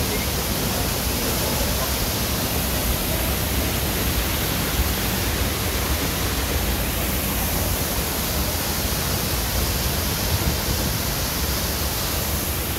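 Waterfall pouring: a steady, even rush of falling water.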